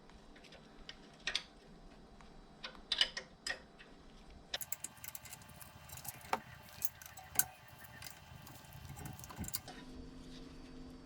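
Metal spanners clinking and clicking on the rear brake caliper's bolts as they are undone: scattered clicks at first, then quicker, busier clinking from a little under halfway.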